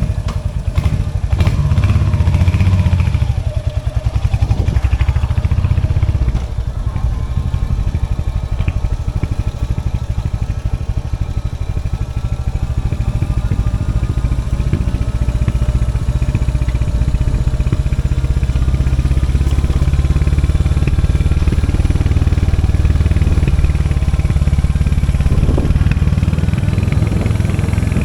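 Royal Enfield Hunter 350's 349cc single-cylinder J-series engine running with its exhaust thump, mostly holding a steady idle. The engine briefly picks up about two seconds in and settles again. A few clicks come near the start.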